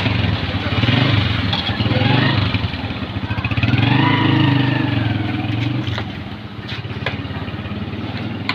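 A motor vehicle engine running close by, its pitch rising and then falling around the middle, as a vehicle passes.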